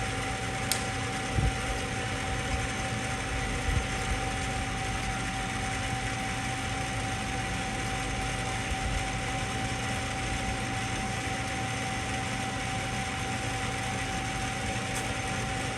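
Hardinge HLV-H precision tool room lathe running steadily with its power feed engaged, giving a steady whine over a machine hum. A few light knocks come in the first four seconds.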